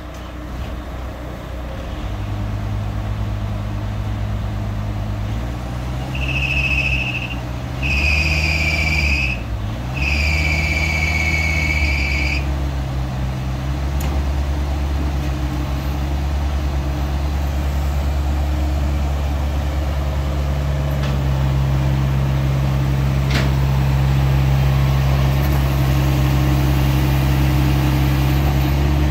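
Kubota U48-4 mini excavator's diesel engine running steadily, its pitch briefly dipping and recovering about eight to ten seconds in and rising a little after about twenty seconds. Three high electronic beeps sound between about six and twelve seconds in, the last the longest.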